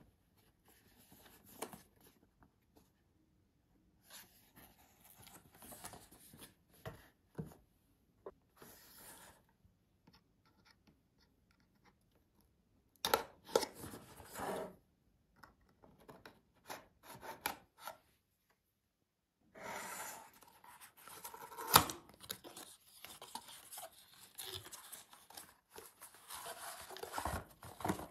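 Cardboard retail box handled and opened: rubbing and scraping of the cardboard, a snap-off utility knife cutting the seal, then the flaps pulled open and a foam-legged flexible tripod drawn out of the box. The handling comes in short spells with silent gaps, and one sharp click stands out about two-thirds through.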